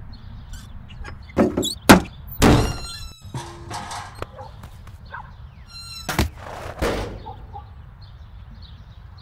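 Cartoon slapstick sound effects: a few sharp thumps and a clatter between about one and a half and three seconds in, then two more hits about six and seven seconds in, over a steady outdoor background with faint chirping.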